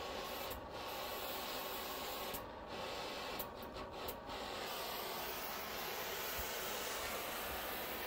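Steady hiss of a torch flame heating a rusted hydraulic cylinder fitting to break it loose, with a few brief breaks in the hiss around the middle.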